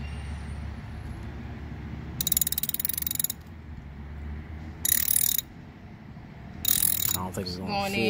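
Hand ratchet with a T30 Torx bit clicking in three short bursts as it drives a screw. The first burst lasts about a second, the other two about half a second each.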